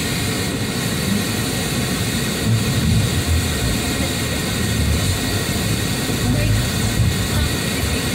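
Car driving on a town street, heard from inside the cabin: steady road and engine noise.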